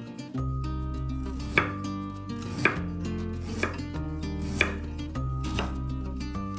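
Knife chopping on a cutting board, five sharp chops at about one a second, over background music.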